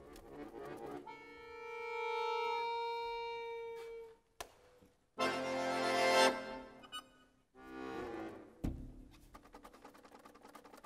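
Pigini concert accordion playing fragmented contemporary music: a held chord swells and fades, breaks off, then a loud dense chord cluster, short stabs and a quick stuttering figure near the end. A single sharp knock sounds a bit over two-thirds in.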